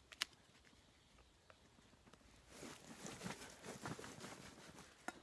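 Rustling and crinkling of cloth and gear as a dark bundle is pulled out of a canvas backpack, with a sharp click just after the start and another near the end.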